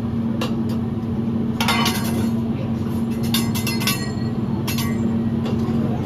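Metal utensils clinking and clattering on a teppanyaki griddle at irregular intervals, over a steady low hum.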